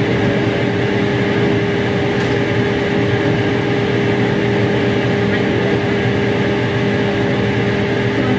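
Kitchen range-hood exhaust fan running above the stove: a loud, steady whooshing rush with a constant motor hum.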